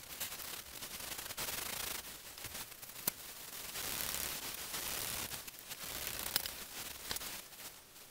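0000 steel wool scrubbing an oiled cast iron lathe bed, a rough rubbing noise that swells and fades in uneven back-and-forth passes, with a few sharp clicks. The rust and grime are being worked off the bed ways.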